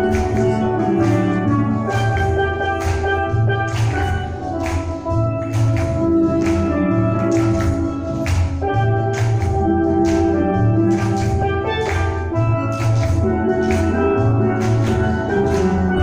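Steel drum ensemble playing live: many steel pans struck together, ringing melody notes over low bass notes, with a steady, even beat.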